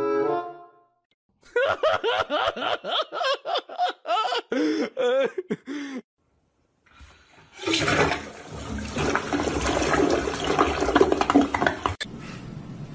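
Water rushing out of a bottled-water cooler's tap into a bowl for about four seconds, cutting off abruptly near the end, then a fainter trickle.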